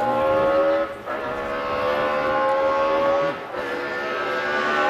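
Rally car's engine running hard under acceleration, its pitch climbing through the gears, with short breaks at the upshifts about a second in and again about three and a half seconds in.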